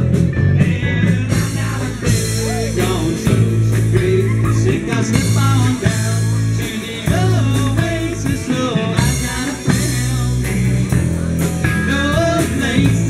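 Live rock band playing: electric guitars, bass and drum kit, with a singer's voice.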